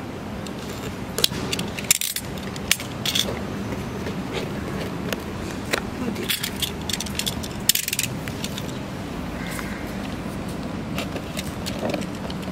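A utility knife cutting open a cardboard toy box, with the box being handled: irregular scrapes, clicks and crinkles, a few sharper clicks about 2 and 8 seconds in.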